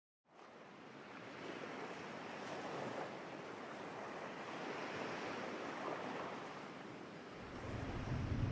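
Ocean waves and surf: a steady rushing wash that fades in from silence, with a low rumble joining near the end.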